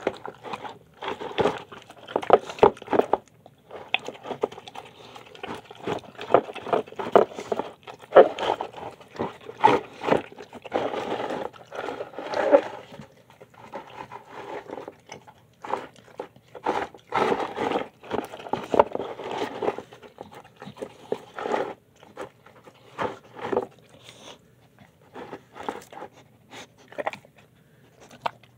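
A dog eating a soft homemade mix of chicken, kidney beans, lentils and rice from a plastic bowl, close to the microphone: an irregular run of wet chewing and mouthing noises that comes in fits, with short pauses.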